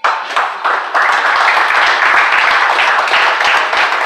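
A crowd applauding, breaking out suddenly and keeping up steadily, as a prize winner's name is called.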